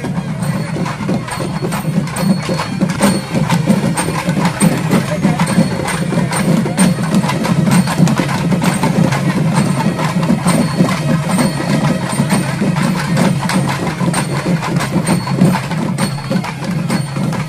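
Procession drums beaten fast and without a break, with dense rapid strokes and a regular high tick keeping time.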